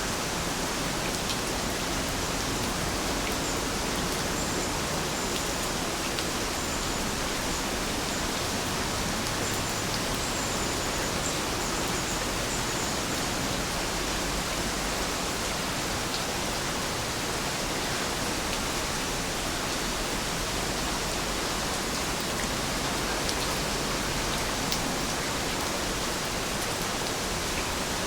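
Steady rainfall, an even hiss of rain with now and then a single drop ticking out.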